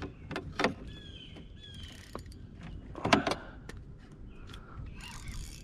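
Spinning reel being cranked as a hooked fish is played, with a few sharp knocks, the loudest about three seconds in.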